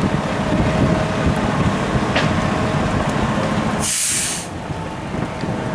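Fire engine's diesel engine and pump running steadily, with a short loud hiss about four seconds in.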